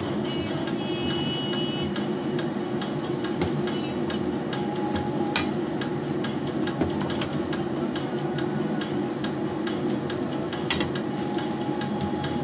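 Hot oil sizzling and crackling steadily around turon (sticky-rice spring rolls) deep-frying in a wok, with a couple of sharper clicks as a slotted turner touches the pan.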